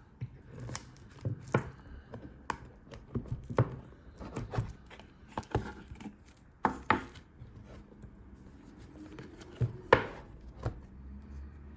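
Smartphone retail box and packaging being handled and opened: an irregular run of taps, clicks and scrapes, with the loudest knock about ten seconds in.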